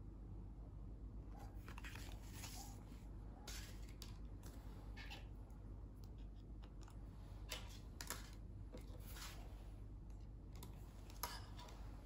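Paper greeting cards being handled, with faint rustles of card stock and a few sharp light clicks as a card is fitted into a small metal wire clip.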